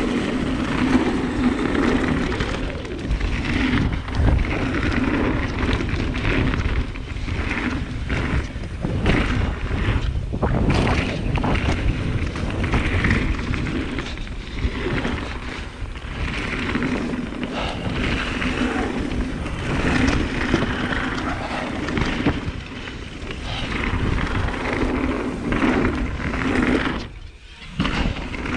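Mountain bike descending a dirt singletrack: a continuous rumble of tyres on the trail with frequent knocks and rattles over bumps, and wind buffeting the microphone. The noise drops out briefly near the end.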